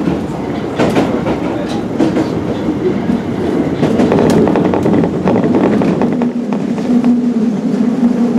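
Osaka Municipal Subway 20 series train (Hitachi IGBT-VVVF inverter) running, heard from inside the car: a steady rumble of wheels on rail with scattered clacks from the track. About six seconds in, a steady hum at one pitch joins the rumble.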